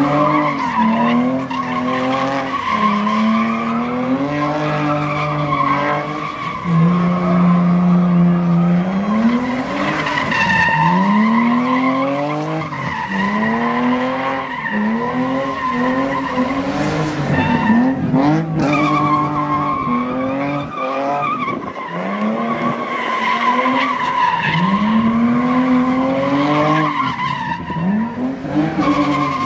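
A car engine revving hard again and again, its pitch climbing and falling back every second or two, as the car drifts. Over it runs a steady high squeal from the spinning tyres.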